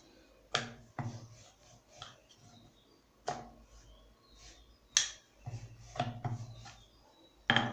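A hand pressing and rubbing rolled-out naan dough on a round wooden rolling board: soft rubbing, broken by several short, sharp wooden knocks at irregular intervals.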